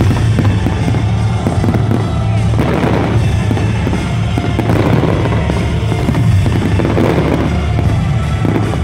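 Fireworks display: a dense, unbroken run of bangs and crackling from bursting shells and rising comets, over a low rumble.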